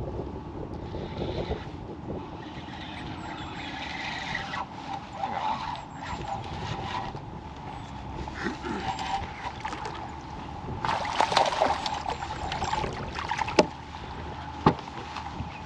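Water and wind around a stopped bass boat while a fish is reeled in, with scattered clicks, a louder rush of noise about two-thirds of the way in, and a couple of sharp knocks near the end.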